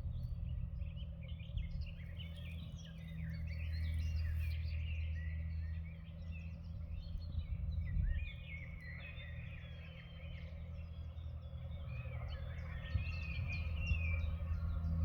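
Several songbirds singing at once, a dense run of short chirps and whistles, over a steady low rumble.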